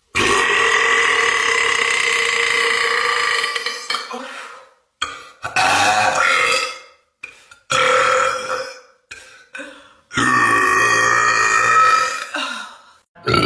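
A woman belching loudly four times. The first belch is long and steady, about four seconds, followed by two shorter ones, then another long one of about two and a half seconds.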